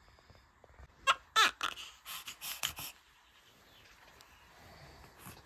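Newborn baby crying: a falling wail about a second in, followed by a few short cries that stop at about three seconds.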